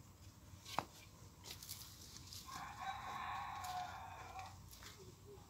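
A rooster crows once: one call of about two seconds, starting about two and a half seconds in. A sharp click about a second in is the loudest sound.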